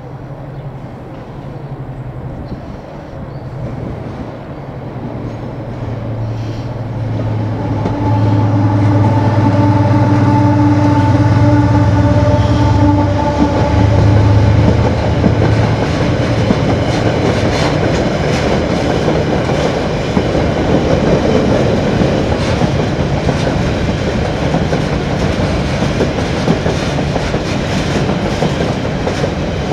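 A Class 70 freight locomotive's V16 diesel engine drones steadily, growing louder as it comes up and passes, with a few higher steady tones over the low note. After about fifteen seconds the engine gives way to the long train of loaded container wagons rolling by, wheels clattering over the rail joints.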